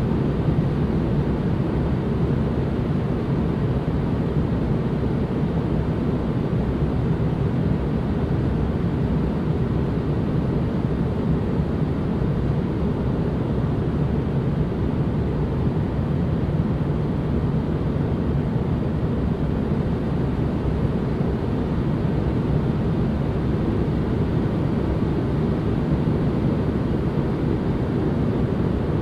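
Steady white-noise ambience track: a deep, even rushing noise, heavier in the low end than a bright hiss, that holds unchanged throughout.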